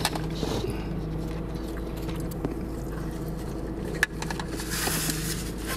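Steady low hum of a car idling, heard inside the cabin. A sharp click comes about four seconds in, and a brief hiss follows around five seconds.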